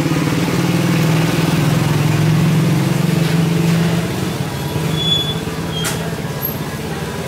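An engine running steadily close by with a low hum, easing off about four seconds in; a single sharp click near the end.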